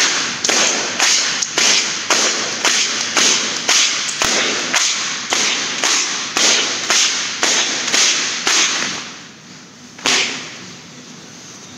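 Heavy battle ropes slapping the gym floor in a steady rhythm, a little over two slaps a second, as they are swung in circular waves for a shoulder warm-up. The slapping stops about nine seconds in, followed by one more thud about a second later.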